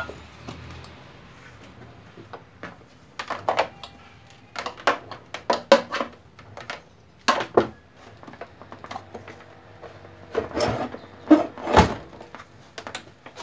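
Irregular knocks, clunks and clicks of a stand mixer's housing and power cord being handled and set in place on a workbench.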